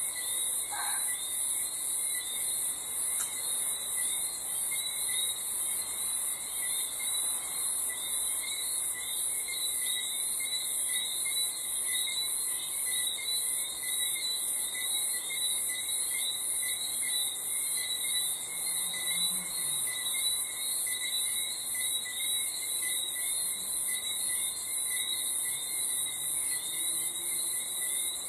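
Night chorus of crickets chirping in a dense, steady, fast-pulsing high trill, with fainter lower trills from other insects or frogs beneath it.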